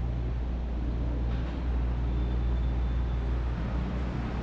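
Steady low rumble of city traffic, with a faint thin high whine for about a second midway through.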